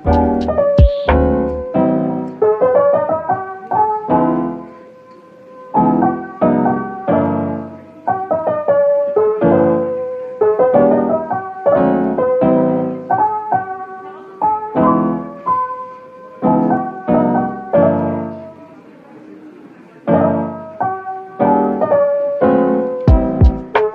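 Background music: a piano melody of struck notes, thinning out briefly twice, with a drum beat coming in near the end.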